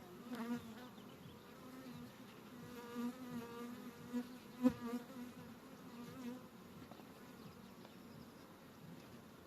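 Honeybees buzzing around an opened hive, with several flying close past the microphone so the pitch rises and falls as they pass. The colony is irritable and flying at the beekeepers. A single sharp click comes about four and a half seconds in.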